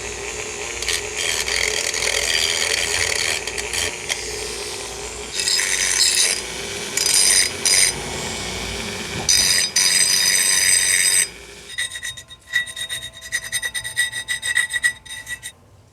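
Electric drill running with its bit grinding and scraping in a metal knob's hole, with bursts of high squealing. The motor stops abruptly about eleven seconds in, and lighter rapid scraping follows.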